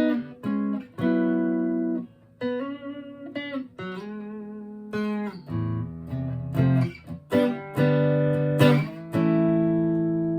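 Electric guitar played clean through a Vox AV30 hybrid tube amp: a run of picked notes and chords that ring out between strikes, the last chord left sustaining near the end.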